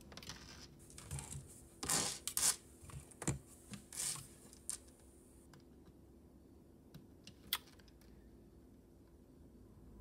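Light clicks and taps from a gold-tone necklace chain and a gem tester's pen probe being handled on a tabletop. They come in a cluster over the first half, then one more click a little later.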